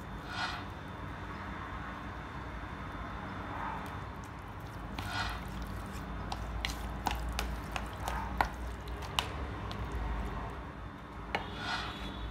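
Chicken pieces being mixed by hand into a wet curd-and-spice marinade in a plastic bowl: soft squishing with a run of sharp little clicks as fingers and chicken knock against the bowl.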